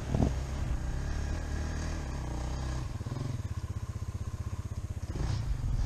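Dirt bike engine running at a steady idle, with an even, rapid pulse through the second half.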